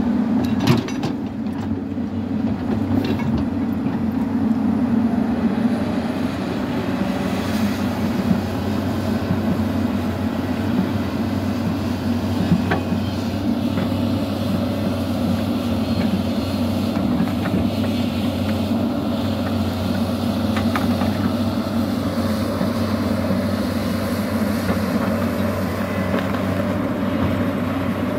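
Hyundai 215L crawler excavator digging: its diesel engine runs steadily under load, with a few sharp clanks.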